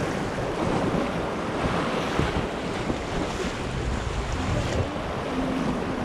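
Fast-flowing river water rushing, a steady noise, with wind buffeting the action-camera microphone.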